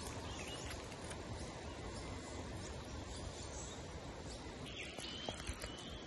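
Steady outdoor background noise, with faint bird chirps in the last second or so.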